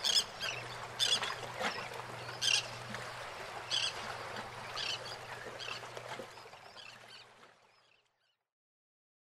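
Pool-side morning ambience: short high-pitched squeaks about once a second over light water sound and a low steady hum, fading out to nothing about eight seconds in.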